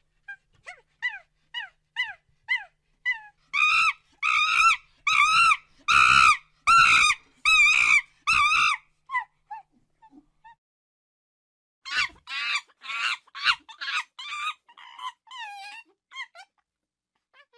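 A monkey calling: a run of short falling chirps, then loud screeching calls about one a second for some five seconds, and after a pause a quicker run of shorter calls.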